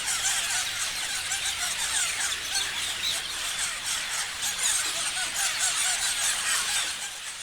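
A flock of parrots chirping together: a dense, unbroken chatter of many short, high calls overlapping one another.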